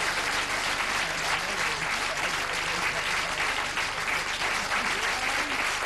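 A live audience applauding steadily with dense clapping.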